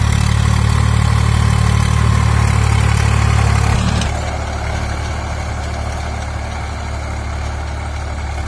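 Swaraj 744 FE tractor's three-cylinder diesel engine running steadily at work in the field. About four seconds in, the sound cuts to a quieter, farther engine as the tractor pulls a rotavator.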